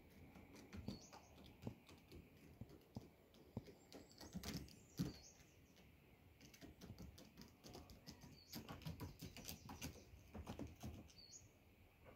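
Faint scattered taps and scrapes of a raven and a cat moving over an asphalt-shingle roof, with a few short high bird chirps now and then.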